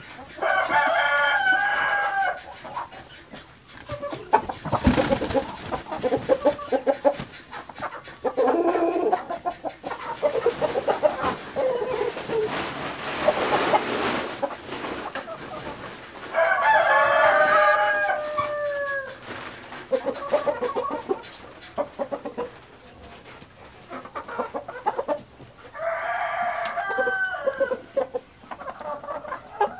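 Roosters crowing three times, each crow about two seconds long, with hens clucking in between. There is a sharp knock about five seconds in.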